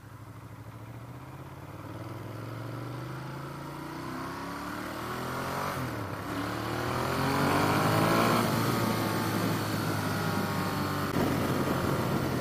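Ducati Monster's V-twin engine accelerating hard through the gears, its pitch climbing and dropping back at upshifts about six seconds in and again just past eight. Wind rush on the helmet microphone grows as the speed builds.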